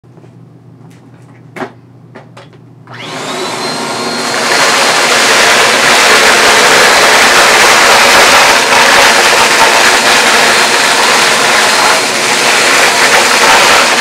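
Bissell CleanView Compact Turbo upright vacuum switched on: a few clicks, then about three seconds in the motor starts with a rising whine and builds to a loud, steady running roar.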